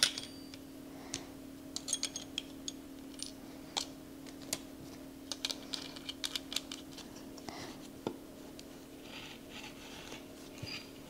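Small clicks and taps of a rotary cutter's plastic and metal parts (guard, washers, blade, orange knob) as the old blade is taken off and a new one fitted. Near the end comes a soft scraping as the fresh blade rolls through fabric on the cutting mat. A faint steady hum sits underneath.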